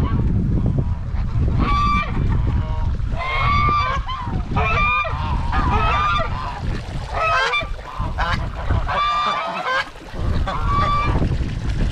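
Domestic goose honking repeatedly, about seven loud calls a second or so apart, over the steady rumble of strong wind buffeting the microphone.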